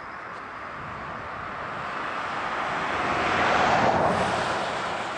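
A passing vehicle: a steady rushing noise that swells to a peak a little under four seconds in and then fades away.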